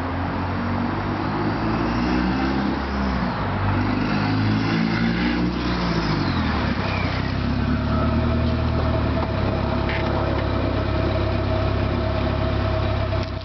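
Turbocharged Honda Fit engine revving up and down several times, then settling to a steady run, with a faint rising-and-falling turbo whistle. The catalytic converter is out and the exhaust spits straight from the downpipe with a whoosh.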